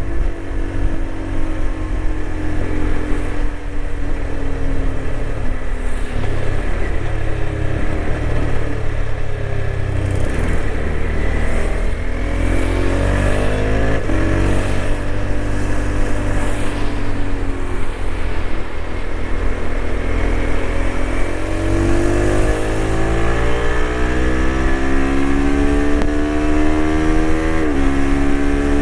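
TVS Apache RTX 300 motorcycle's single-cylinder engine under way on a highway. The engine note sinks, then climbs again through gear changes, with a quick shift near the end. A steady rumble of wind noise on the microphone lies underneath.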